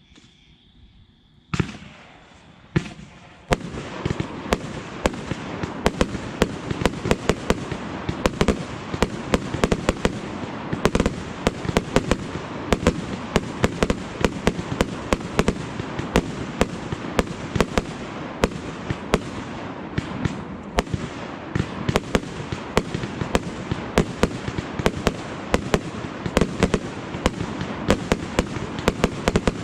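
Aerial fireworks: two sharp bangs about a second apart, then from about three seconds in a dense, continuous barrage of cracks and bangs from shells launching and bursting.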